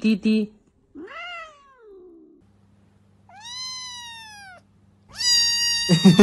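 Kitten meowing three times: a short falling meow, then two longer high-pitched meows, the last the loudest. A quick run of repeated tones sounds in the first half-second.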